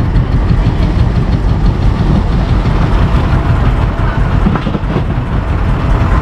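Boat engine running steadily with a low, knocking rumble.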